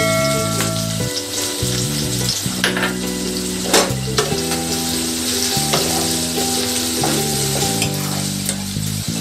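Chopped onion sizzling in hot oil with whole spices in a pan, freshly added and being stirred, with an occasional sharp scrape or click of the spatula against the pan.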